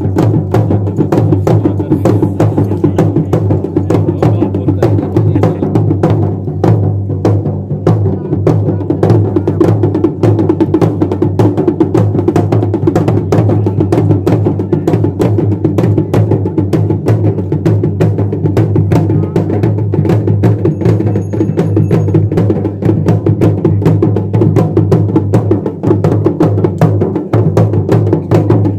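Drums beaten in a fast, unbroken rhythm of sharp stick strokes, with a steady low hum underneath.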